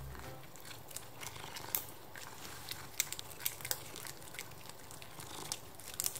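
Tabby cat licking and biting at a squeeze-tube cat treat pouch held in a hand. Irregular small wet clicks and smacks come through, with the plastic pouch crinkling under its teeth and paw.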